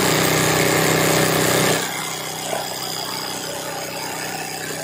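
Industrial sewing machine running for hoop embroidery, its needle stitching rapidly over a steady motor hum; a little under two seconds in, the sound drops to a quieter steady hum.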